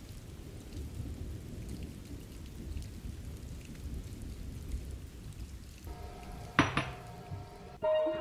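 Steady rain with a low rumble. About six and a half seconds in there is a single sharp knock that rings briefly, and near the end music starts.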